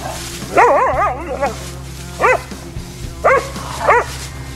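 Hunting-dog puppies yelping as they play-fight: a burst of overlapping high yips about half a second in, then single rising-and-falling yelps roughly once a second, over a steady low hum.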